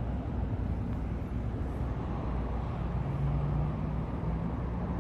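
Steady low rumble of a vehicle, with a low hum coming in about three seconds in.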